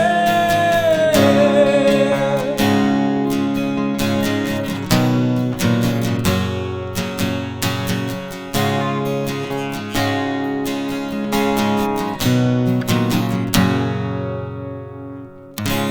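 Acoustic guitar strummed in chords as an instrumental break in the song. A held sung note lingers and fades in the first couple of seconds, and near the end the chords ring out and die away before a fresh strum.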